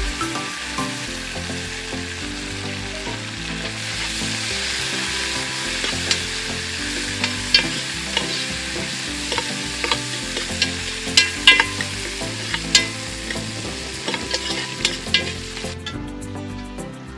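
Whole spices and mint leaves sizzling as they fry in a large metal pot, with a metal spoon stirring and scraping against the pot in sharp clicks from about six seconds in. The sizzle cuts off sharply near the end.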